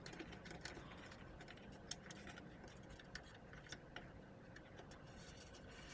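Near silence: faint room tone with a few small, scattered clicks.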